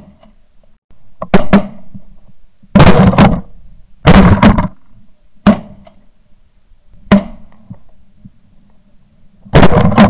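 Shotgun shots at geese overhead, heard close from a barrel-mounted camera: about half a dozen loud bursts, each a single shot or two or three in quick succession, coming every second or two.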